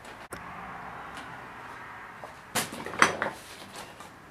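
A few sharp knocks and clinks of hard objects being picked up and set down, loudest about three seconds in, over a faint steady hiss.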